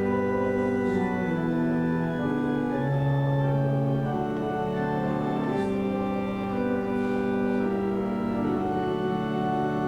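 Church organ playing slow, sustained chords that shift every second or so.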